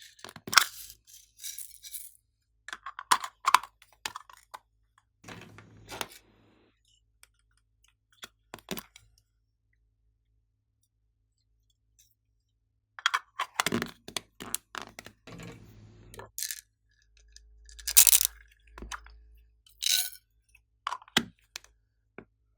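Slime being handled and mixed: scattered sticky clicks, pops and short crackles, with a pause of a few seconds midway.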